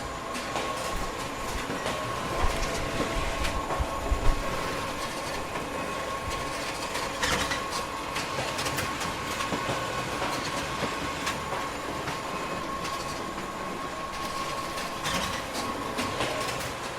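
Photocopier running a booklet-making job: a steady motor hum with a thin whine, and constant clicking and clacking of the paper-handling mechanism, with a few heavier thumps a few seconds in.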